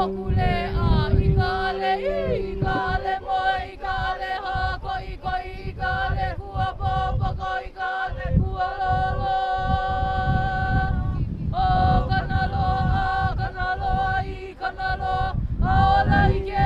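A woman's voice chanting a traditional Polynesian chant in long held, wavering notes, over a steady low tone.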